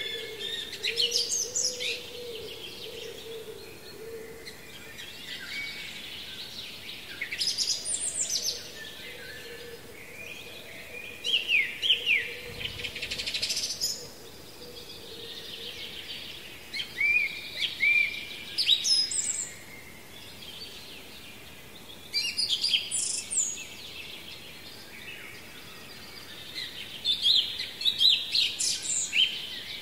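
A songbird singing short phrases of quick, sweeping high notes, repeated six times at intervals of about five seconds, over faint outdoor background noise.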